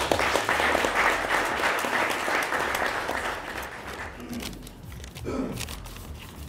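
Applause, a dense patter of clapping hands that starts at once and dies away about four seconds in.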